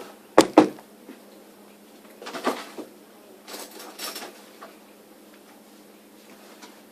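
Kitchen items being handled: two sharp knocks about half a second in, then a few softer scraping or rustling noises.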